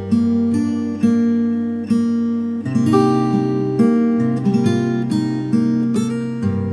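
Relaxing instrumental music on acoustic guitar: picked notes and chords struck every half second to a second, ringing over sustained bass notes.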